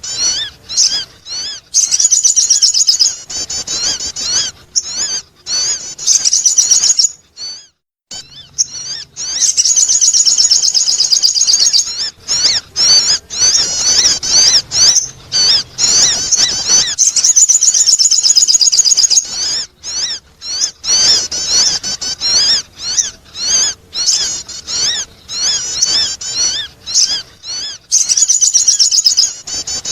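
Sogon bird calling: dense, rapid high-pitched chattering trills in long runs, broken by short pauses, with a brief gap about eight seconds in.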